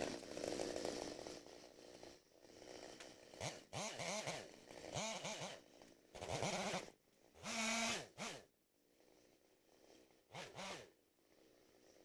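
Goats bleating: a string of separate calls from about three seconds in, most rising and falling in pitch, one held steady about eight seconds in. In the first two seconds a chainsaw is running.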